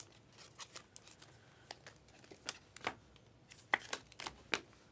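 Panini Prizm basketball trading cards being flipped one after another through a hand-held stack, giving a scatter of about a dozen quiet clicks and snaps as card edges slide off and tap against each other.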